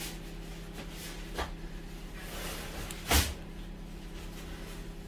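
A kitchen oven being opened to take out a tray of drumsticks: a light click about a second and a half in, then a single heavy clunk about three seconds in, over a steady low hum.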